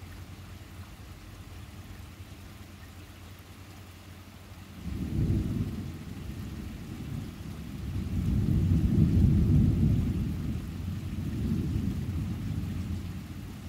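Thunder rumbling in deep, rolling waves that begin about five seconds in, swell to their loudest past the middle and ease off near the end, over steady rain.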